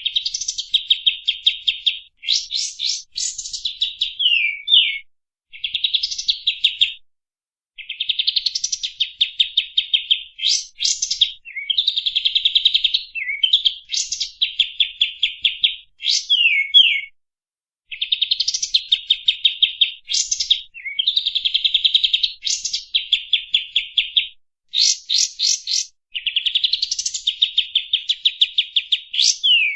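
Kapas tembak (pied triller) singing a long, energetic song: rapid buzzy trills in phrases of one to two seconds, broken by sharp downward-slurred whistles, repeated with only brief pauses.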